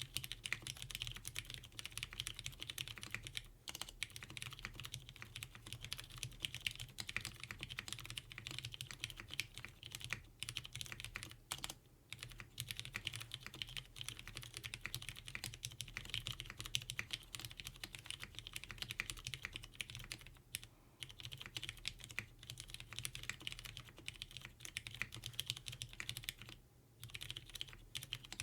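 Typing on a plateless Geonworks F2-84 mechanical keyboard with lubed Cherry MX Hyperglide Brown tactile switches and GMK keycaps: a fast, continuous stream of key clacks, broken by a few short pauses.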